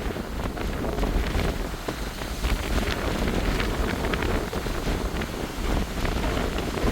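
Strong wind buffeting the microphone: a steady low rumble with scattered crackles.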